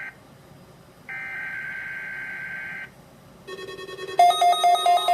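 NOAA Weather Radio SAME/EAS data header for the Required Weekly Test: a steady two-tone digital screech about two seconds long, following an identical burst after a second's gap. Near the end a buzzy electronic sound starts, and a louder pulsing electronic tone with many overtones then takes over.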